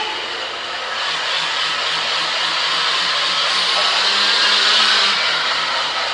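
A steady whooshing noise that grows a little louder about four to five seconds in, then eases slightly.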